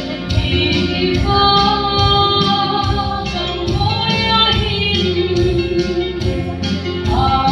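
A woman singing a Christian song into a microphone, holding long notes, over a musical accompaniment with a steady beat.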